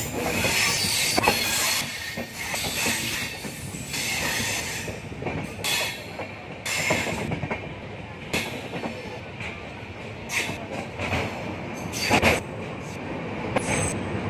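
Passenger express train running on the rails: dense rolling noise from the coaches' wheels with sharp knocks now and then, and high wheel squeal.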